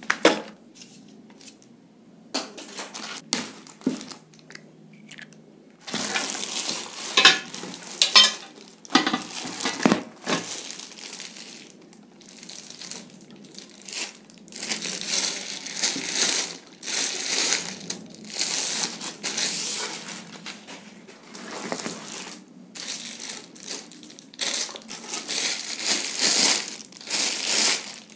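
Plastic-wrapped metal shelf frames being handled and lifted out of a cardboard box: the plastic wrap crinkles and rustles in irregular stretches, with a few light metal knocks and clanks a few seconds in.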